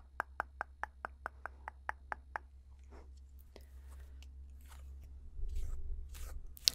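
Close-miked mouth sounds: a quick, even run of sharp tongue clicks, about five a second, then softer, scattered clicks with a low rumble near the end.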